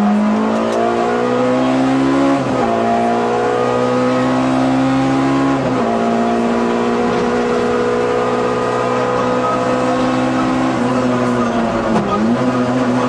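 Peugeot 106 rally kit car's engine heard from inside the cockpit, accelerating hard, with upshifts about two and a half and six seconds in, then held at high revs. Near the end the revs dip and pick up again briefly as the throttle is lifted and reapplied.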